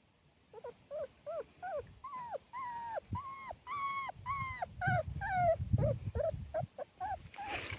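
Puppy whimpering and crying: a string of short, high whines, each falling in pitch, growing longer and louder in the middle before shortening again.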